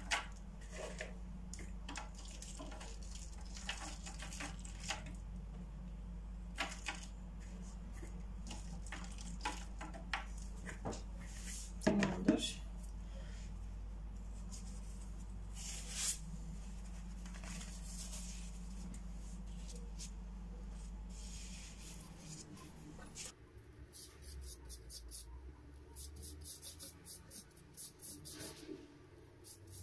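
Light taps and rustles of chopped walnuts being sprinkled over buttered yufka in a baking tray, scattered irregularly over a steady low hum, with one louder knock about halfway. About three-quarters of the way through the hum stops and a quicker run of rapid light ticks follows.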